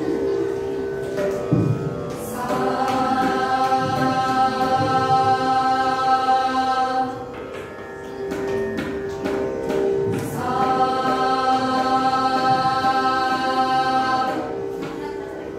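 Women's group singing in unison, holding two long sustained notes of several seconds each over a steady drone.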